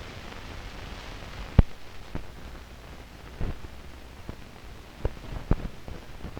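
Hiss and low hum from an old film soundtrack, broken by about six scattered clicks and pops, the loudest about a second and a half in.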